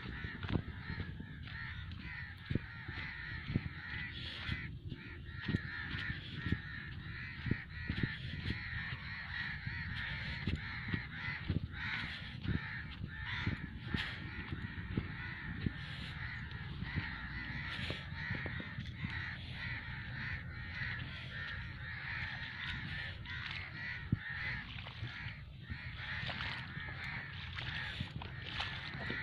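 A large flock of birds calling continuously, a dense chatter of many overlapping calls, with frequent low thuds underneath.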